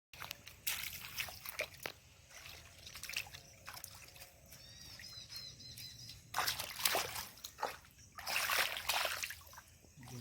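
Shallow flood water splashing and sloshing in irregular bouts, with two louder spells of splashing in the second half. A bird chirps briefly in the middle.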